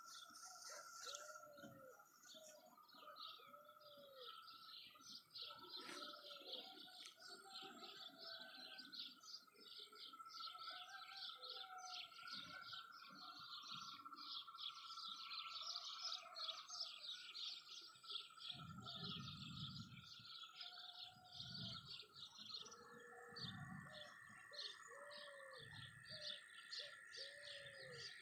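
Faint birdsong: many small birds chirping rapidly and without pause, with a lower arched call repeating every second or two.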